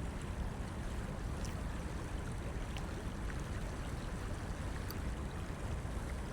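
Steady outdoor noise of wind and water at a shoreline, with a low rumble and a few faint ticks.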